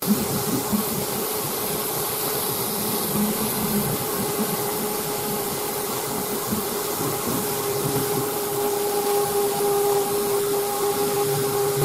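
Mirka Deros 550CV random-orbit (DA) sander running steadily while dry-sanding car paint with 1200-grit abrasive: a steady hum with a hiss over it.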